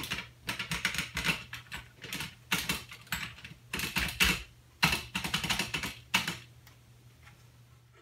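Typing on a white plastic Apple keyboard: quick runs of key clicks in uneven bursts for about six seconds, thinning to a few stray clicks near the end, with a low steady hum underneath.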